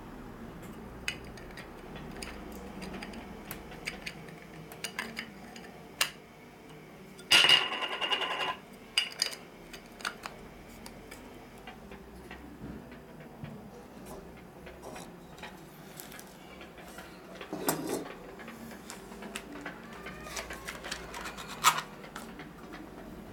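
A Nikon AF-S 24-70mm f/2.8G ED lens and its plastic caps being handled on a wooden table: scattered light clicks and knocks, with a louder rubbing squeak lasting about a second some seven seconds in.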